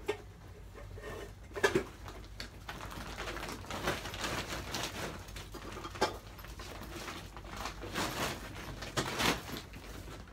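Clothes and plastic bags rustling as garments are handled and packed, with a few sharp knocks along the way.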